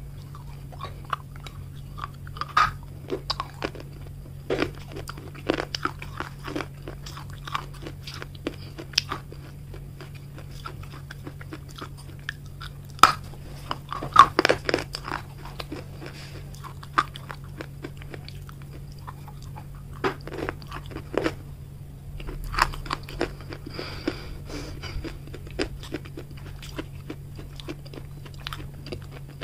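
Close-miked biting and chewing of a very hard piece of baked red clay bar: sharp, irregular crunches come in bursts as pieces are bitten off and ground between the teeth, with short pauses between.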